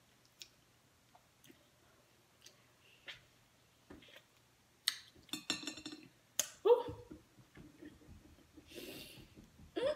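Mouth noises of someone biting into and sucking on a lemon wedge: scattered small wet clicks, then a quick cluster of smacking and sucking sounds about halfway through. These are followed by a short wordless groan at the sourness and a breathy exhale near the end.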